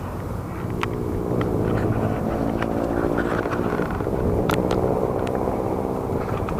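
Steady engine drone from a passing motor, a low even hum that comes in about half a second in, over wind buffeting the microphone, with a few light clicks scattered through.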